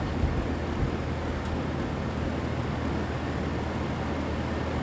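Battery ground cable being connected to the battery: a couple of light knocks and a small click over a steady background hum, with nothing else happening.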